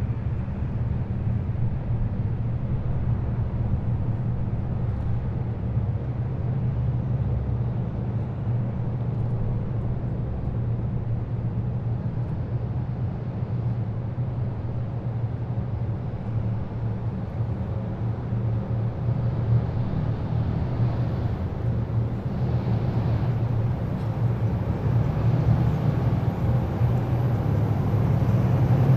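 Diesel engines of heavy military vehicles running in a steady low rumble, swelling slightly louder near the end, with a faint high whine joining in partway through.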